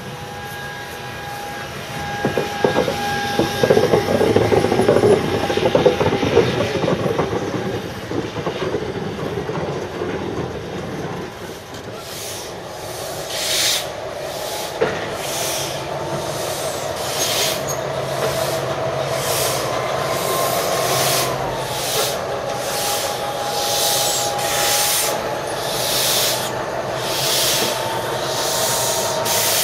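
A steam tank locomotive and its train running past close by for the first ten seconds or so. After that, the class 80 tank locomotive 80 030 stands with steam hissing in regular bursts about once a second over a steady hum, which rises in pitch briefly about twenty seconds in.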